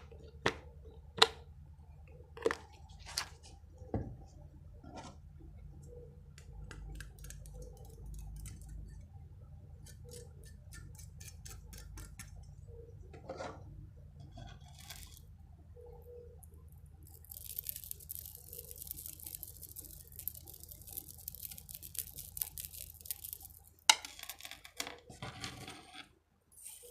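Close-miked ASMR trigger sounds of small objects being handled: a few sharp taps or clicks in the first seconds, scattered light handling, then a stretch of high scratchy hiss, a single loud knock near the end and more rustling.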